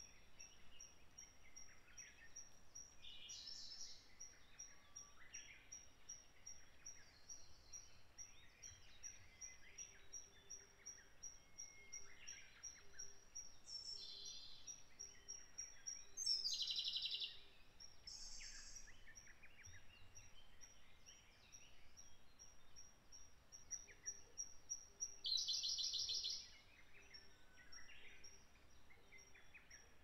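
Woodland birdsong from several birds: short scattered phrases and a steady high ticking call repeated about three times a second. The loudest sounds are two rapid, buzzy trills, about 16 and 25 seconds in.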